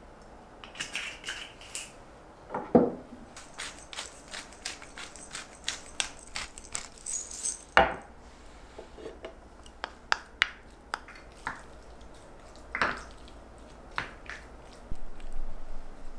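Hand pepper mill grinding over raw beef cubes in an enamel tray: a run of dry, quick clicks. A few heavier knocks sound as things are handled on the wooden board, and near the end a wooden spoon mixes the seasoned meat.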